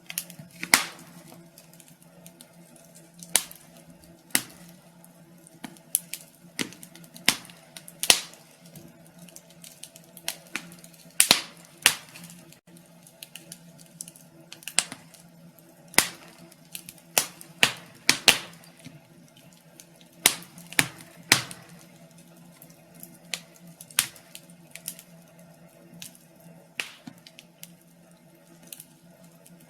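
Wood fire crackling in a fireplace: irregular sharp pops and snaps, about one a second, over a faint steady low hum.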